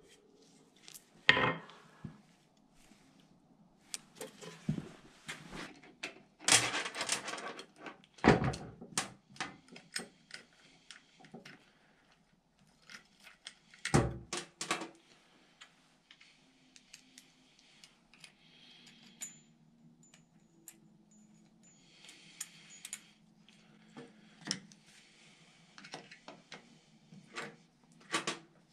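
Metal parts and a loop of chain clinking, rattling and knocking as they are handled and fitted onto a chainsaw winch on a metal table, with a few louder knocks, the loudest about fourteen seconds in.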